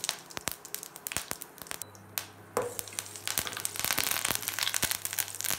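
Mustard seeds popping in hot oil in a stainless steel pan, with sharp irregular pops. From about three seconds in it thickens into a denser crackling sizzle as fresh curry leaves fry and a spoon stirs them.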